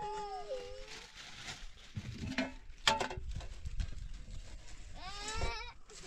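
Goats bleating: one long call that drops in pitch and tails off just after the start, and a shorter rising call about five seconds in. A single sharp knock, like a pot or dish being set down, comes near the middle.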